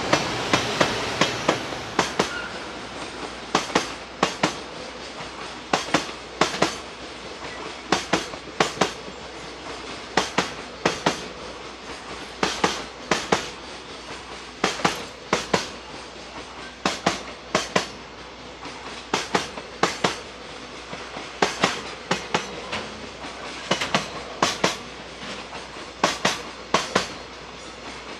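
Freight train wagons rolling past, their wheels clacking over rail joints in paired clicks about every two seconds over a continuous rolling rumble.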